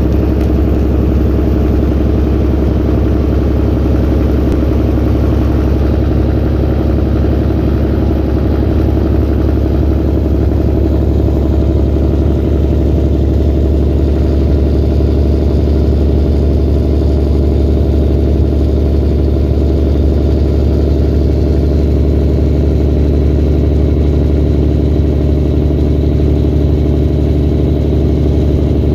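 2011 Peterbilt semi-truck's diesel engine running at a steady cruise while pulling a loaded grain trailer, heard from inside the cab as a loud, even, deep drone mixed with road noise.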